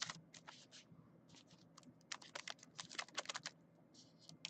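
Faint, quick runs of small clicks and crinkles from hands working at a desk, irregular and busiest in the middle.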